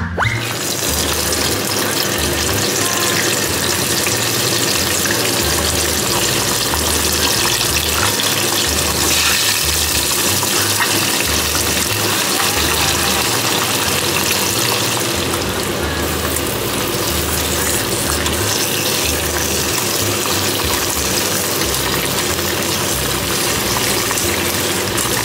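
Chicken wings deep-frying in a small pot of hot oil: a steady, loud sizzle.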